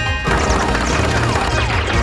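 Cartoon chase music with slapstick crash and whack sound effects and quick falling sweeps.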